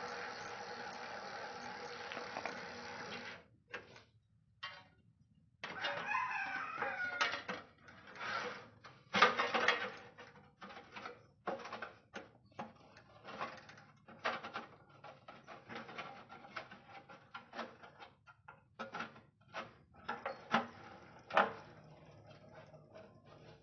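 A steady hiss that cuts off about three seconds in, then a bird calling with wavering, gliding notes for a few seconds, among irregular clicks and knocks that go on to the end.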